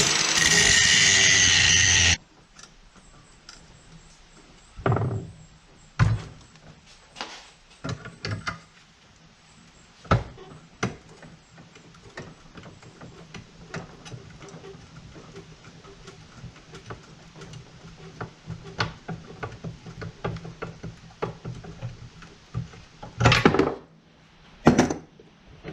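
A power tool runs for about two seconds and then cuts off suddenly, followed by scattered knocks and clunks of tools and metal parts being handled, with two louder clatters near the end.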